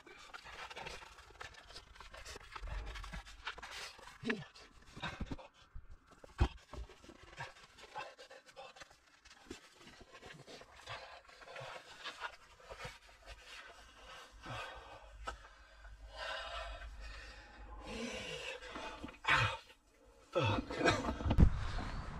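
A man breathing hard and panting while pulling on a cold, wet neoprene wetsuit, with the suit and gear rubbing and rustling. Near the end, louder knocks and rustling come in.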